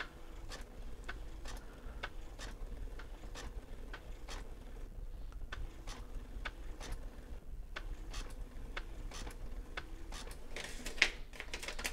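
TRS-80 TP-10 thermal printer printing, heard as a quiet, regular ticking of about two clicks a second, sped up to double speed. One louder click near the end.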